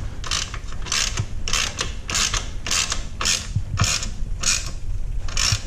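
Small socket ratchet clicking in repeated back-and-forth strokes, about ten in all, roughly one every half second, as it runs down a crash-bar clamp bolt.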